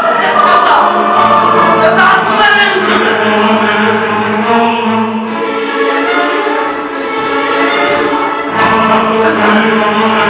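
Choir singing slow, sustained chords over steady held low notes.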